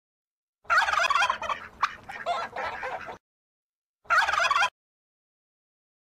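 Domestic turkey gobbling twice: a long gobble of about two and a half seconds, then a short one about a second later.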